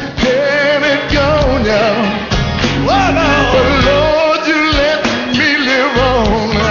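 Gospel song: a lead singer holding long, wavering notes over a full band with drums.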